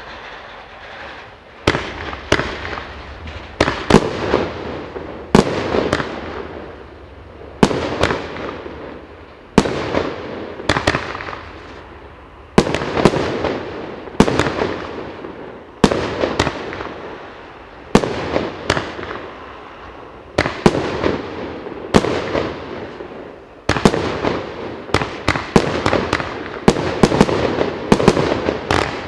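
25-shot firework cake firing shot after shot, one about every one and a half to two seconds. Each shot is a sharp bang followed by a fading crackle as its stars glitter. Toward the end the shots come faster, in quick clusters.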